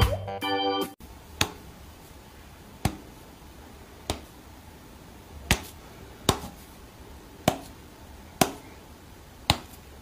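A second of music ends abruptly. Then come eight short, sharp clicks, roughly one a second, from a Bengal cat standing on its hind legs and batting its paw at a person's hand.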